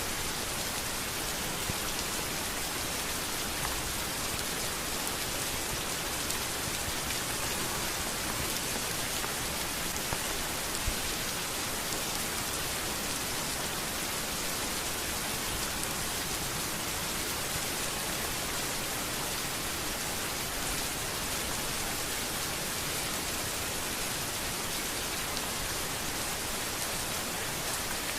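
Steady rain falling on a street: an even, unbroken hiss of drops with no change in strength.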